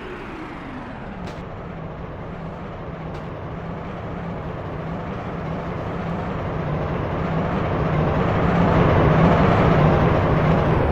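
A motor vehicle's engine running with a steady low hum and road noise, growing louder as it comes closer.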